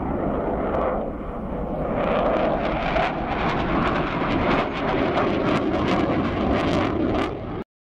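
Twin Klimov RD-33 turbofans of a MiG-29 fighter passing in a display flight on afterburner. The jet noise is loud and full of sharp crackles and grows louder about two seconds in. It cuts off abruptly near the end.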